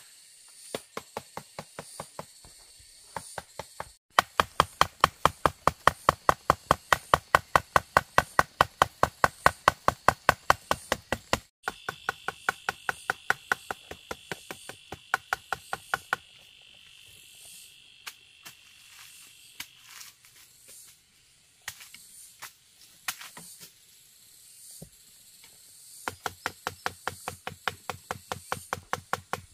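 A knife chopping fast and evenly on a cutting board, about six strokes a second, in several runs with pauses between; a long, loud run is followed by scattered strikes, and another run starts near the end.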